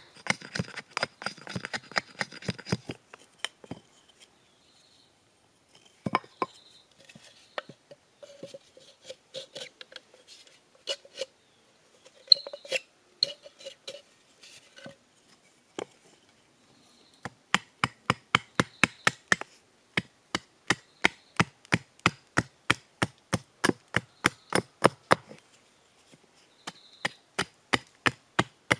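Hatchet chopping and shaving a small wooden stick against a log block: sharp wooden strikes in quick runs, about three a second in the longer run. A quieter stretch midway holds scattered lighter knocks and handling sounds.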